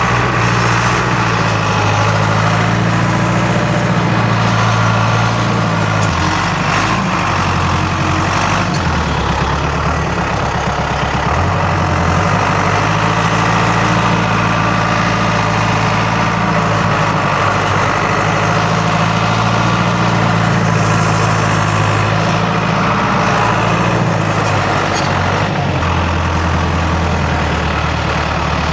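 Timberjack cable skidder's diesel engine running steadily while it pushes snow, its low engine note dipping and coming back up a few times.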